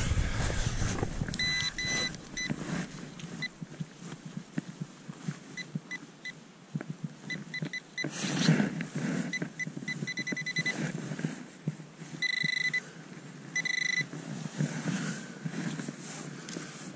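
Metal-detecting pinpointer beeping at one fixed pitch while it is probed through the loose dug soil: scattered short beeps, a quick run of beeps about two-thirds through, then two longer steady tones near the end as it closes on the target. Soil crumbling and rustling under gloved hands between the beeps.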